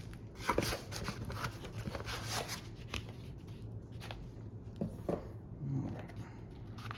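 Package contents and packing material being handled during an unboxing: scattered rustles and light clicks, a few of them sharper about half a second in and around five seconds in.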